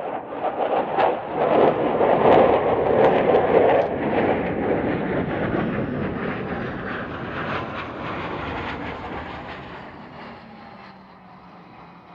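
F-15 Eagle fighter jet's twin turbofan engines, loud jet noise with a crackling edge, loudest about two to four seconds in as the jet pulls up into a steep climb. The noise then fades steadily as it climbs away.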